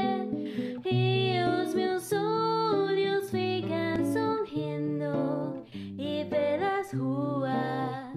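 Woman singing a slow, lyrical melody in Portuguese with vibrato, over a plucked guitar accompaniment holding low sustained notes.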